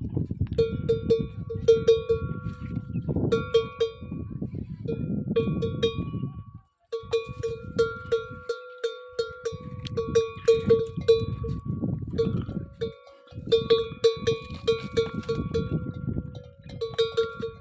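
Metal bells worn by camels clanking irregularly as the animals move, several strikes a second at the same few ringing pitches, over a low rumbling noise. The sound breaks off briefly about seven seconds in.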